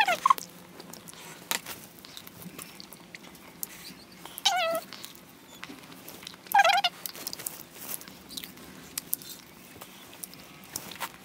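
Three short animal calls, each sliding down in pitch: one at the very start, one about four and a half seconds in and one about six and a half seconds in. Scattered faint clicks in between.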